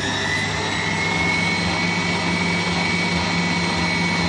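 Electric stand mixer running with its dough hook turning flour and wet ingredients in a metal bowl. The motor's whine finishes rising just after start-up and holds a steady high pitch over a low hum.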